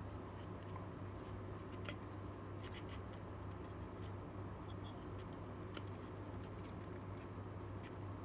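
Scattered light clicks and scratches of small objects being handled, over a steady low hum.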